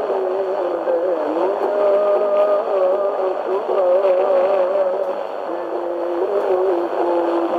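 TRT Voice of Turkey shortwave broadcast on 6040 kHz, heard through a Tecsun PL-398MP portable radio's speaker. A slow melody of held, wavering notes plays under steady static hiss.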